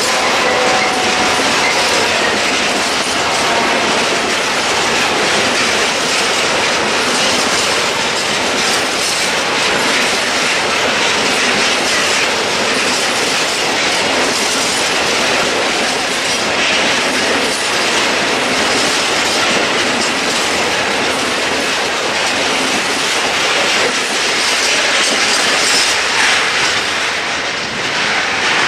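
Freight train of loaded covered hopper wagons rolling past at close range: a steady rumble with wheels clattering over the rail joints. The sound eases slightly near the end as the last wagons go by.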